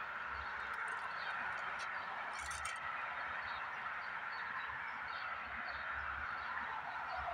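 Steady outdoor chorus of animal calls, with faint short bird chirps repeating over it.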